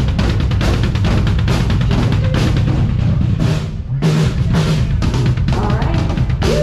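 A live band playing amplified music through a PA, with the drum kit's bass drum and snare the loudest part and guitars underneath.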